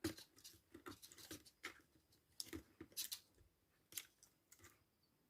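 Faint, scattered small clicks and scratches of fingers feeding thin antenna wires through a laptop's plastic casing.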